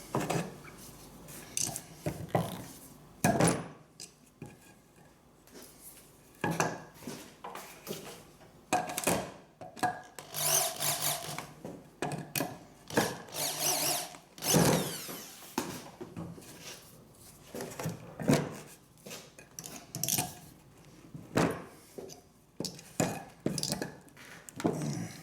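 Irregular knocks and clatter of tools being handled against an aerated concrete block. There are two short spells of drilling into the block, about ten and thirteen seconds in.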